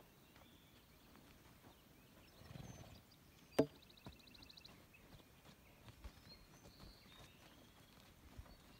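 A horse's hoof knocks once, sharply, against a ground pole about three and a half seconds in, with soft hoof steps on arena dirt around it.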